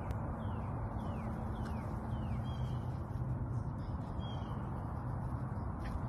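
A bird calling with short falling chirps, about two a second for the first couple of seconds and a few more about four seconds in. Under it runs a steady low outdoor rumble.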